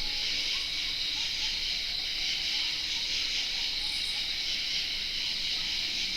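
Night insect chorus of crickets and katydids: a dense, steady high-pitched trilling.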